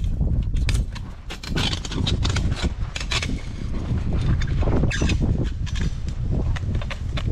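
Fencing pliers prying and twisting a wire T-post clip off a steel T-post: scattered metal clicks, scrapes and knocks, in clusters about a second and a half in, around three seconds, and near five seconds, over a steady low rumble.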